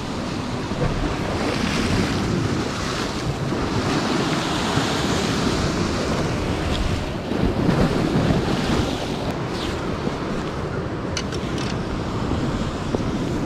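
Sea surf washing and breaking over shoreline rocks, a steady rushing with swells, mixed with wind buffeting the microphone. A few small clicks near the end.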